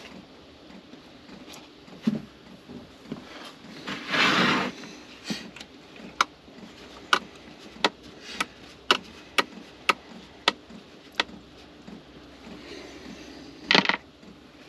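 Plastic drawer unit being shifted and handled on a wooden countertop: a scraping slide about four seconds in, a run of sharp clicks and knocks of plastic on wood, and another short scrape near the end.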